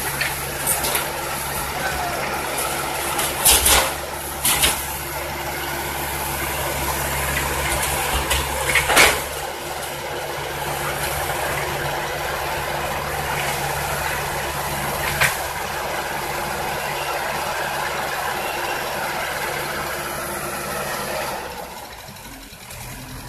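Tata Hitachi EX70 tracked excavator's diesel engine running steadily, with several sharp metal clanks as its steel tracks work along the truck's steel bed. Near the end the engine drops to a lower, quieter run.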